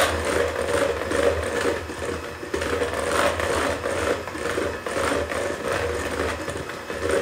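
Electric hand mixer running steadily, its beaters whirring through cake batter (cake mix, eggs, water and oil) in a bowl.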